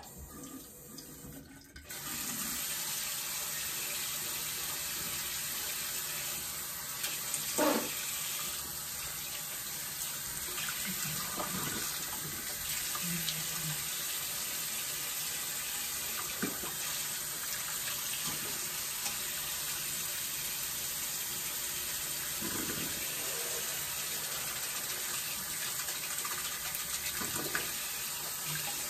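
Bathroom sink faucet turned on about two seconds in and left running steadily, with a few short splashes of water in the basin as he works at the sink.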